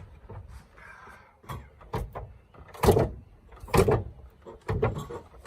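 A run of about five sharp clunks and bangs, the two loudest a little before and a little after the middle.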